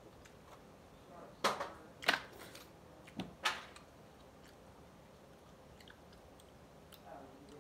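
Handling noises: four sharp rustles and knocks within about two seconds from a cardboard package being handled and put down.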